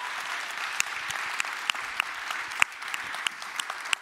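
Audience applauding: a steady patter of many hands clapping, with a few sharper, louder single claps standing out.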